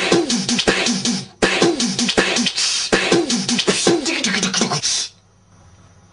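Beatbox-style vocal percussion edited together from short clips of mouth sounds: a fast rhythm of clicks and hits with repeated falling swoops, broken briefly about a second in. It stops abruptly about five seconds in, leaving a faint low hum.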